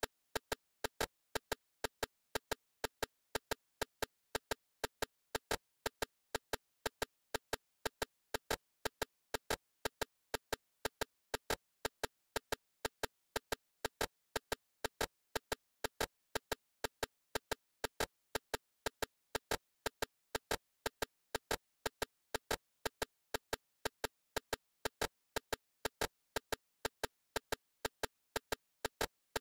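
Sharp clicks repeating steadily, about three a second, with silence between them.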